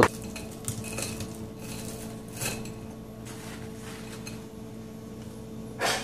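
A steady low hum with a few faint light knocks and rustles of a dish being handled, and a short, louder rustle just before the end.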